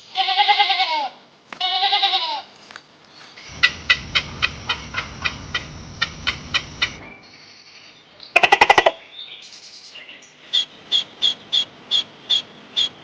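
A string of animal sounds. Two short pitched bleating calls open it, followed by a run of sharp clicks, a brief rapid rattle, and a series of evenly spaced short high chirps near the end.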